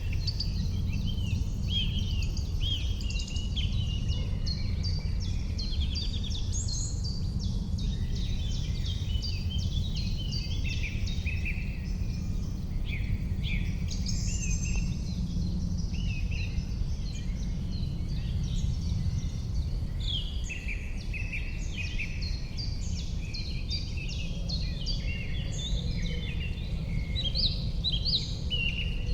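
Springtime dawn-chorus-like mix of several songbirds singing at once, with many overlapping chirps and trills, over a steady low rumble.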